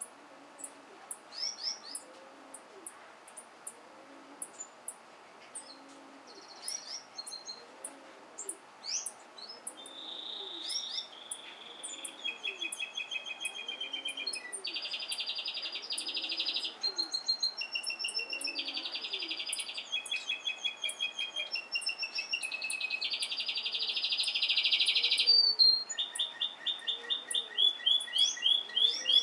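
Caged small finches chirping and singing: scattered thin high chirps at first, building into a song of whistled notes and long buzzy trills, then a run of quick repeated chirps near the end. A faint low call repeats about once a second underneath.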